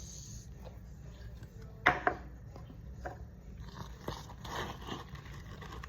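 Slime being squished and poked by hand: two sharp pops about two seconds in, then softer crackling squishes.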